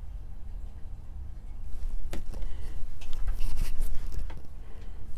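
Handling of the makeup mirror and tools: scattered small clicks, taps and rustles starting about two seconds in, over a low steady hum.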